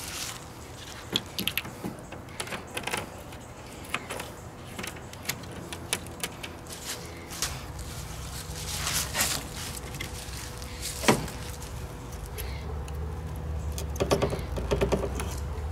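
Handling sounds of a plastic awning bracket and polycarbonate panel: scattered clicks, taps and knocks as the bracket is fitted onto the panel's aluminium edge, with one sharper knock about eleven seconds in. A low steady hum comes up about halfway through.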